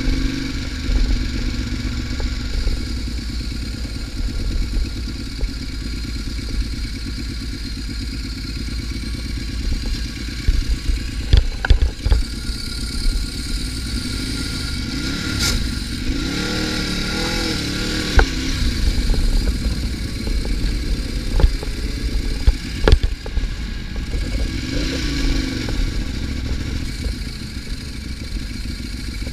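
Motorcycle engine at speed on a racetrack, heard from an onboard camera with heavy wind buffeting on the microphone. The engine pitch rises and falls a couple of times with the throttle, and there are a few sharp knocks.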